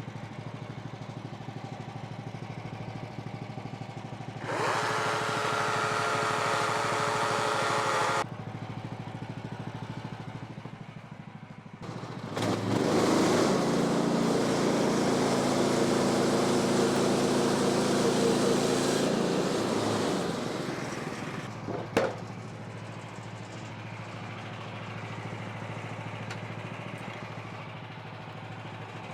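Woodland Mills HM126 sawmill's gas engine running at idle, twice rising to a louder run: a few seconds with a whine about four seconds in, then revving up near the middle and holding high for about seven seconds before dropping back to idle. A single sharp click comes shortly after.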